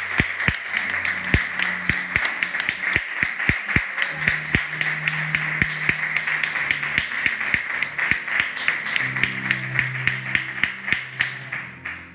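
Steady hand-clapping close by, about five claps a second, over music with low held notes; it all fades out at the very end.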